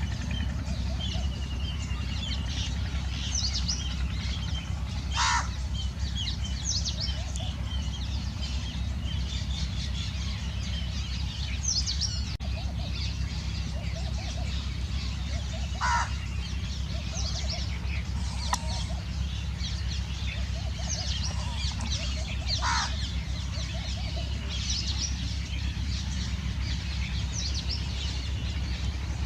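House sparrows chirping, many short, high chirps overlapping without a break. Three or four louder, sharper single calls stand out over them, and a steady low rumble runs underneath.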